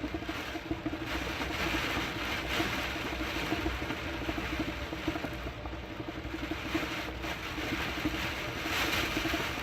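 Typhoon wind and heavy rain beating against a hotel room's window, a steady rushing hiss that swells and eases in gusts, with a low fluttering hum underneath.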